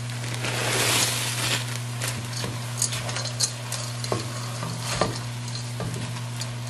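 Frozen corn poured into a hot pot of browned ground beef, onions and green peppers, the sizzling swelling about a second in. Then a plastic slotted spatula stirs and scrapes the pot with a few sharp knocks against its side while the mixture keeps sizzling.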